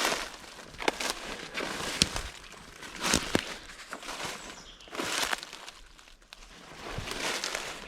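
Footsteps tramping through woodland undergrowth: leaf litter and brush crunching and rustling underfoot in uneven strides, with a few sharp snaps.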